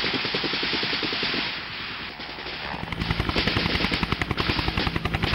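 Rapid machine-gun fire clattering over helicopter noise. About three seconds in, the UH-1 Huey's rotor beat becomes the main sound: a fast, even thudding over a steady engine hum.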